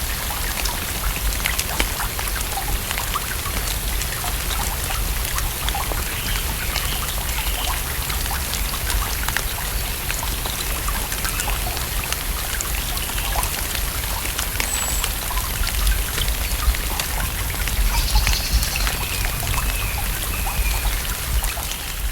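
Steady rain falling on a lake's surface: a dense patter of countless individual drops over a low rumble.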